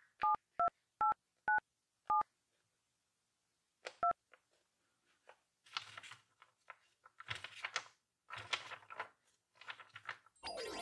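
Telephone keypad touch tones: six quick two-note beeps in the first two seconds and one more about four seconds in, as the keys of a paper phone are pressed. In the second half, paper rustling and crinkling as the paper blind bag is handled.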